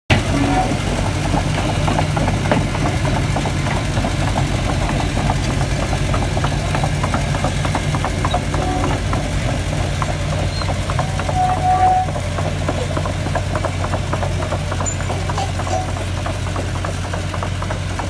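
Diesel engines of a Kobelco SK200 excavator and a HAMM 3410 road roller running: a steady low drone with rapid diesel clatter. The sound eases a little about two-thirds of the way through.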